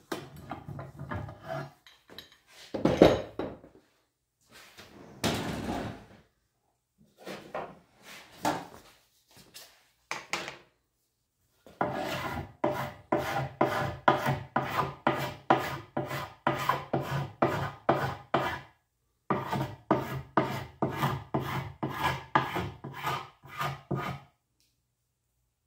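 Hand scraper drawn in quick, even strokes over a glued-up hardwood panel, scraping dried glue squeeze-out off the seams: two long runs of about three strokes a second in the second half. Before that come a few scrapes and a loud knock as pipe clamps are taken off the panel.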